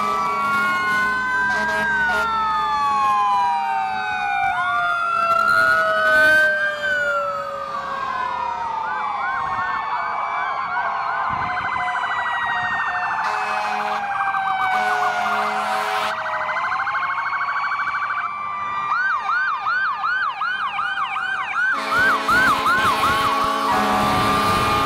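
Several fire truck and ambulance sirens sounding at once as the vehicles pass, slow wails and fast yelps overlapping. Air horn blasts come in about halfway through and again near the end.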